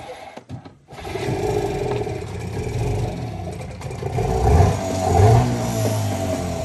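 Small boat's engine starting up about a second in and running, its speed swelling up and down as the boat gets under way.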